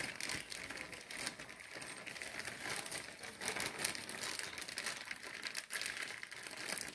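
Low-level irregular crinkling and crackling rustle, with no steady tone.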